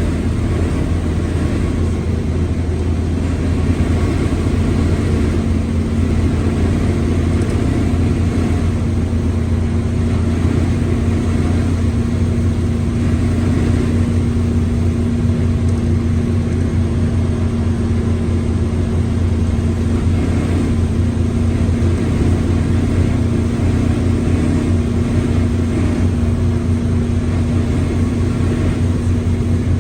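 Mercedes-Benz OF-1721L BlueTec 5 bus's four-cylinder diesel engine running steadily, with the gearbox growling along with it as a steady low hum.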